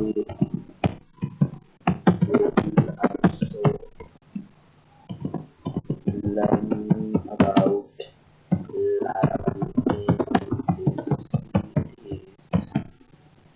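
Computer keyboard typing, a rapid run of clicks, with music with steady pitched notes playing alongside.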